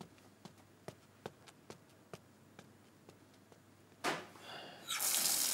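A few faint, scattered knocks and shuffles, then about four seconds in a water tap sputters open and water gushes steadily and loudly into a basin.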